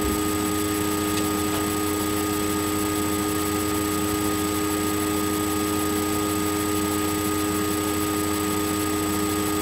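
Steady hiss and low hum with several constant whining tones: background noise picked up through a computer's built-in microphone.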